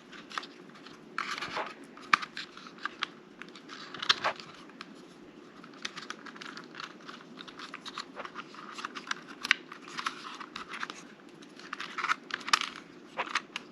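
Hands handling a folded drone and its plastic parts: scattered light clicks, taps and scraping rustles as pieces are fitted together, with a few louder clusters of clicks about a second in, about four seconds in and near the end.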